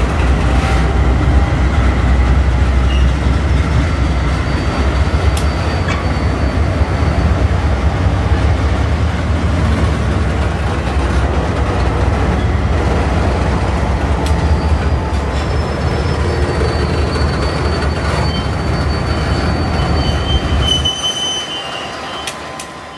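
Freight train rolling past close by: a heavy low rumble of wagon wheels on the rails, with thin high-pitched wheel squeals coming and going. The rumble drops away about 21 seconds in and the sound fades out.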